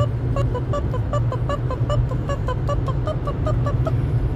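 Car cabin while driving: a steady low road and engine rumble, with a rapid run of short, high pitched notes, about four or five a second, over it.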